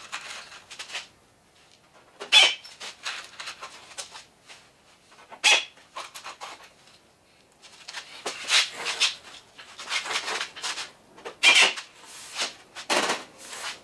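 Pneumatic drill driving screws through sheet metal to hold a new quarter panel in place, run in a series of short bursts with pauses between.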